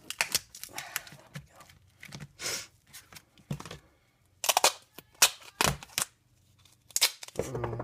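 Duct tape being pulled off the roll, torn and pressed down, heard as several short separate pulls and crinkles with gaps between them, the loudest a little past halfway.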